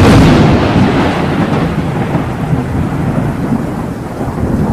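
Thunder sound effect: it starts suddenly with a loud crash and rolls on as a heavy low rumble, with a high hiss that fades over the first seconds.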